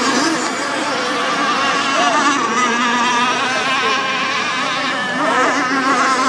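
Several gas-powered RC hydroplane racing boats running flat out at once, their small two-stroke engines whining together with pitches that waver up and down as they race the course.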